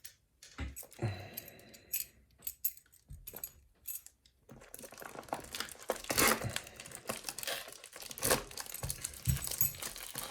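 A package being torn open by hand: a few scattered clicks and rustles, then from about halfway in a steady run of crinkling and tearing of the packaging, with repeated loud bursts.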